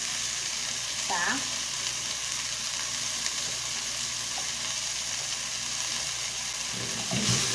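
Chicken frying in oil in a pot, a steady sizzle that grows louder near the end.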